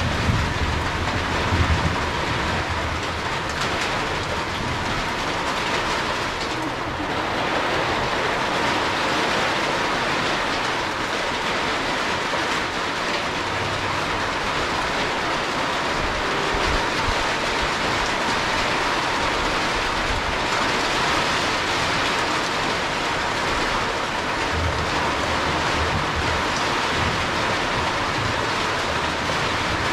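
Heavy rain falling steadily, a dense even hiss with no breaks, with a few low rumbles near the start and again near the end.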